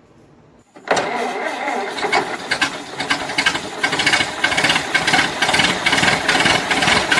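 An engine running, cutting in suddenly about a second in with a rapid, uneven pulsing, and growing somewhat louder.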